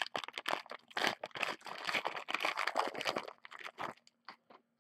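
Plastic wrapper of a Panini Prizm basketball hanger pack crinkling and tearing as it is ripped open by hand. The dense crackling lasts about three seconds, then gives way to a few faint ticks.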